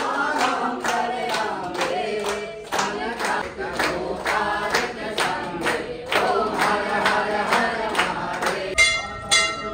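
Group singing of a devotional chant over a steady sharp beat, about three beats a second. Near the end the singing gives way to a metal bell struck twice, ringing on.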